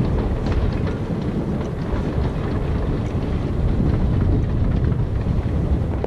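Wind buffeting the camera's microphone on an exposed hilltop: a loud, uneven low rumble.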